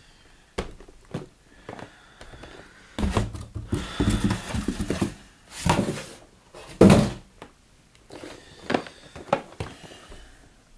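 Cardboard boxes handled on a wooden desk: rustling and scraping with several knocks. The loudest is a single thunk about seven seconds in, as a box is set down.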